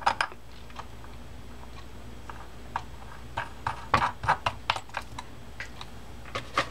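Light, irregular clicks and taps of small metal parts as the star drag and its washers are fitted onto a Daiwa Sealine 47H level-wind reel, with a quick cluster of clicks about four seconds in.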